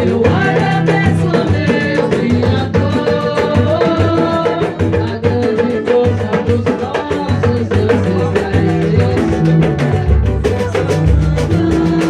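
Percussion-led music: drums keeping a fast, steady beat under sustained melodic notes.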